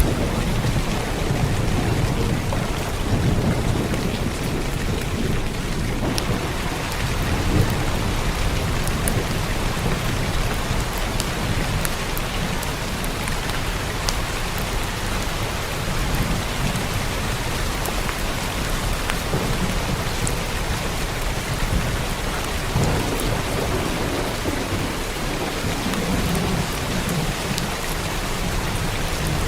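Steady heavy rain pattering on a roof, with low rolling thunder rumbling in the first few seconds and again near the end.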